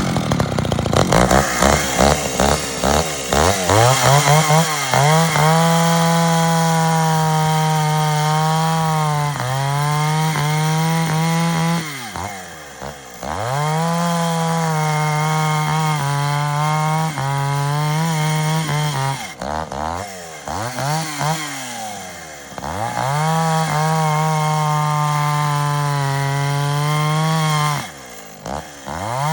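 Echo 550 two-stroke chainsaw revved up and held at high speed for several seconds at a time, dropping back briefly about five times before revving up again.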